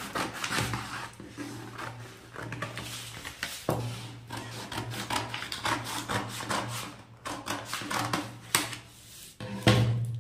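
Scissors snipping through folded sheets of pattern paper, a quick run of cuts with rustling paper, then a louder knock near the end as the scissors are set down on the wooden table.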